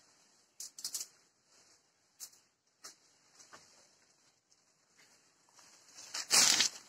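Light rustling and scattered small clicks of leaves and twigs as oranges are picked from the tree, with one loud brushing rustle close to the microphone a little over six seconds in.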